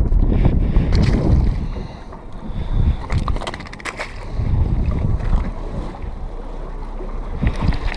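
Wind buffeting the microphone in a gusting low rumble. A cluster of sharp clicks and knocks comes about three to four seconds in.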